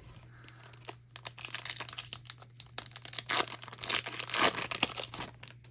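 Crinkly foil wrapper of a trading card pack being torn open and handled: irregular crackling and tearing, densest in the second half.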